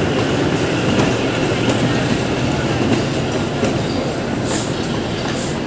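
The Shimla toy train on the narrow-gauge Kalka–Shimla line, running with a steady noise of the train on its track. There are two brief high hisses near the end.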